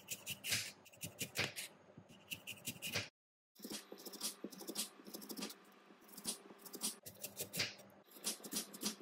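Chef's knife slicing a crisp red apple on a wooden cutting board: a quick cut and tap of the blade on the board with each slice, many in a row. The sound cuts out for about half a second a little after three seconds in.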